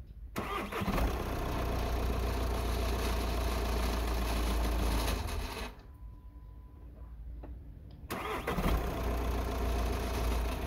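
VW Tiguan's 2.0 TDI CFFB four-cylinder diesel running, heard close up in the open engine bay. It drops away for about two seconds past the middle, then comes back.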